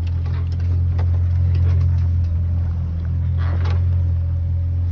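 Steady low drone of a sailboat's inboard engine running under way, with a few faint knocks on board.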